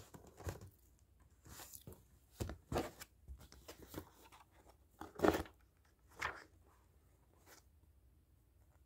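Paper pages of a book being turned and handled: a string of short rustles and crinkles, the loudest about five seconds in.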